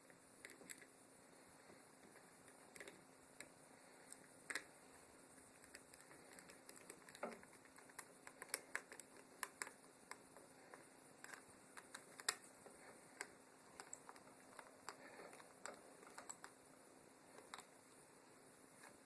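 Faint, irregular clicks and taps of small screws and a screwdriver being fitted into the housing of a replacement extension-cord end, the ticks coming more often from about eight seconds in.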